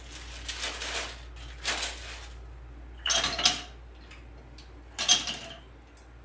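Rustling and crinkling of artificial flowers and leaves being picked through by hand, in four short bursts, the loudest about three and five seconds in.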